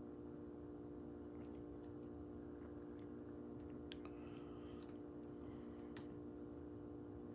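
Steady low electrical hum with a few faint, scattered clicks.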